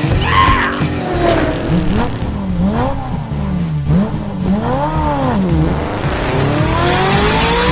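Background electronic music: a steady low beat under synth tones that swoop up and down, ending in a long rising sweep.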